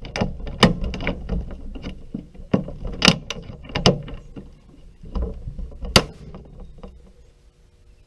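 Stanley hand pop rivet gun squeezed repeatedly to set a pop rivet through galvanized sheet metal: a string of sharp metallic clicks and clacks at irregular spacing, the loudest one about six seconds in.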